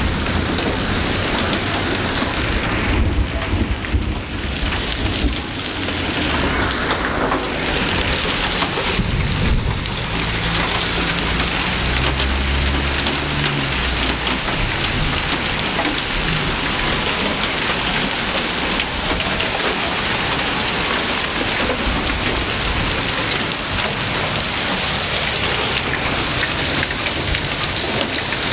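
Heavy hail with rain pelting a street and parked cars: a loud, dense, steady clatter of hailstones, with sharp knocks from stones striking car bodies. A low rumble swells briefly a few seconds in and again about twelve seconds in.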